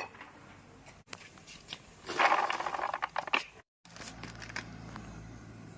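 Boiled corn kernels poured from a steel scoop into a plastic basin: a short rushing patter about two seconds in, lasting just over a second. After that only a faint low hum with a few small ticks.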